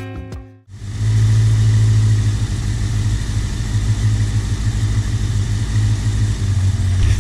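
Suzuki GSX750F Katana motorcycle's inline-four engine running steadily at idle, with vacuum gauges hooked up for a carburettor sync. Background music cuts off just before it starts, under a second in.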